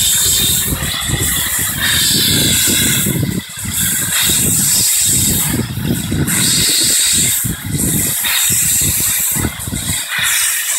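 Steam locomotive hauling carriages as it pulls slowly away, steam hissing from the front of its cylinders over a loud, uneven low rumble that dips briefly several times.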